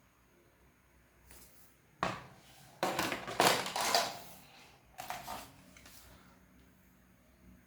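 Clattering knocks and scrapes of hard plastic toy guns being handled: a sharp knock about two seconds in, a dense loud clatter in the middle, and a shorter one near five seconds.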